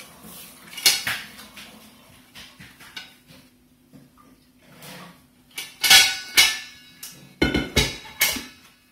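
Stainless steel preserving pan knocking and clanking against the worktop and its handle as it is lowered and set down. A few light knocks come about a second in, and the loudest clanks come in two clusters in the second half.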